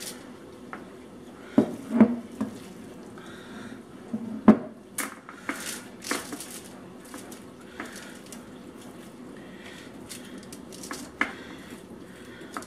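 Wooden spoon scraping and knocking against a glass mixing bowl and a foil-lined sheet pan as sticky oat mixture is scooped out and spread. There are scattered knocks and scrapes, the sharpest about 2 seconds and 4.5 seconds in.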